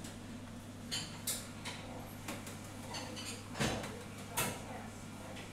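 Glass beer bottles being handled, clinking and knocking a handful of times over a steady low hum, the loudest knock about three and a half seconds in.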